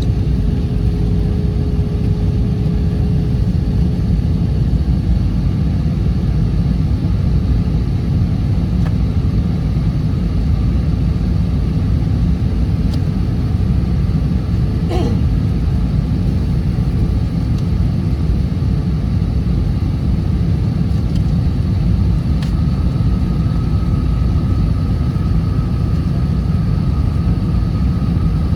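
Airliner cabin noise: a steady, loud low rumble of engines and airflow heard from inside the cabin. A faint hum fades out in the first few seconds, there is a single click about halfway through, and a faint higher whine comes in near the end.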